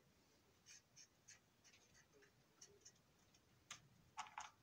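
Faint, short scratchy strokes and light ticks of paint being worked onto a plastic model box car, spread unevenly, with a few stronger strokes near the end.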